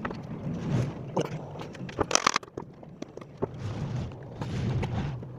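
Screwdriver tip scraping and clicking against the rusty metal inside a blender's motor base, with a cluster of sharp knocks about two seconds in and scratchy scraping near the end.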